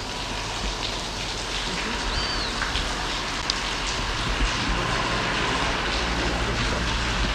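Steady rush of water splashing in a seal pool, with a brief high chirp about two seconds in.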